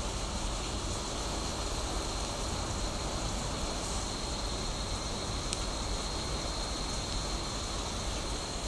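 Steady rain with no thunder, an even hiss, and a faint steady high tone over it. One faint click comes about five and a half seconds in.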